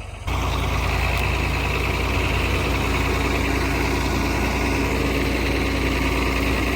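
Tractor engine running steadily, cutting in abruptly just after the start.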